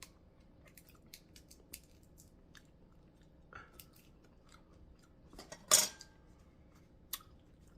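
Scattered small clicks and clinks of utensils and dishes while eating a seafood boil, with one louder clatter about six seconds in.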